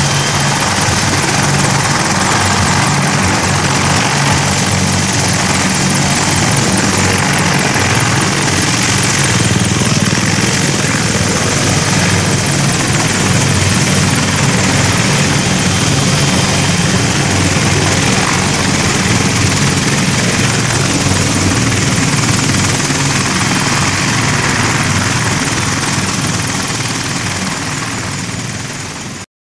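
AH-64 Apache attack helicopter running on the ground with its twin turboshaft engines and main rotor turning: a steady, loud rotor beat under a thin high turbine whine. The sound fades out over the last few seconds and cuts off.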